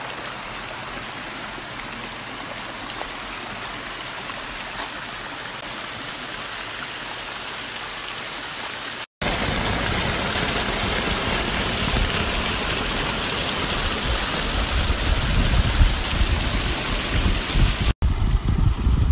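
Stream water running over granite rock, a steady rushing. After a cut about nine seconds in, a small waterfall splashing into a pool close by, louder and fuller.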